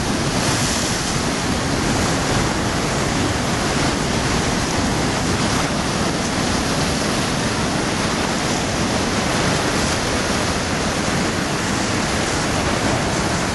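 Heavy surf breaking and washing over a rocky reef: a steady rush of waves and foaming water with no single crash standing out.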